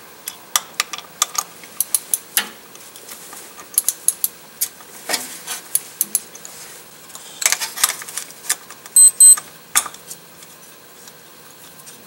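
A 7 mm socket ratchet clicking in short, irregular runs as it loosens the center screw of a transmission wiring harness connector. Two short, high beeps a little past the middle.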